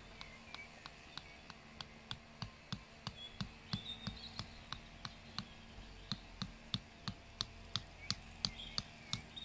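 Rubber mallet tapping a metal tent peg into turf: a steady run of short, dull knocks, about three a second, getting louder in the second half.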